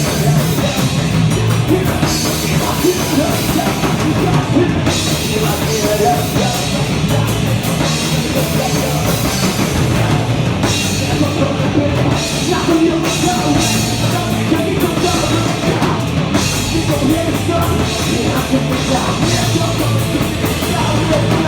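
A rock band playing a loud, heavy punk-metal song, with the drum kit prominent.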